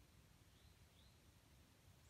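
Near silence: faint outdoor ambience with two faint, brief high chirps.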